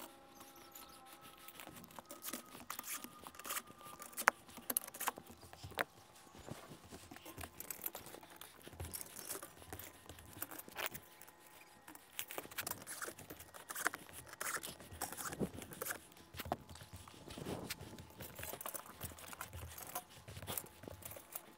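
Irregular clicks, taps and knocks of IronRidge XR aluminium solar racking rails and their roof mounts being handled and set in place, with the sharpest knock about four seconds in.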